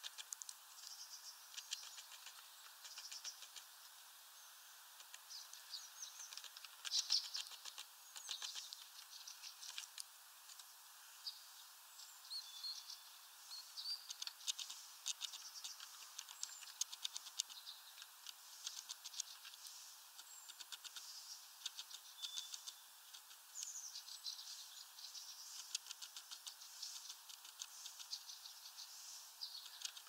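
Rain pattering on a bird feeder as a dense run of light taps, with small birds giving short high chirps scattered throughout.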